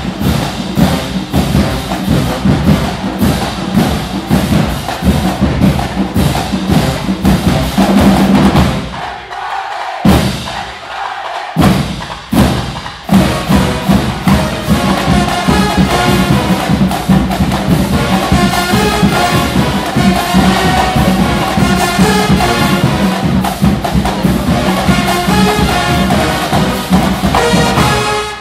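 Drumline playing a fast, dense percussion cadence, loud throughout. It drops out briefly around ten and twelve seconds in, then carries on with a wavering pitched melody over the drums.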